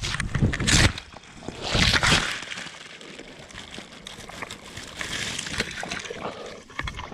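Boots splashing and sloshing through a shallow, waterlogged marshy spot, with two loud splashes in the first two seconds. Dry grass then rustles and scrapes close against the body-worn camera as the walker goes down into the grass.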